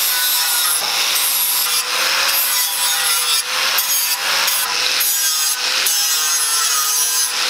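Angle grinder with a flap disc grinding the paint off thin 18–20 gauge steel sheet metal on a radiator core support, preparing it for welding. The grinder's motor holds a steady whine under a harsh grinding rasp that swells and eases in repeated short strokes as the disc is worked across the metal.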